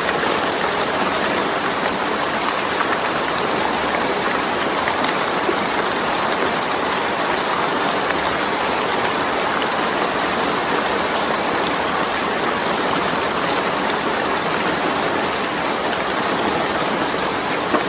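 Steady, even rain falling on a zinc roof.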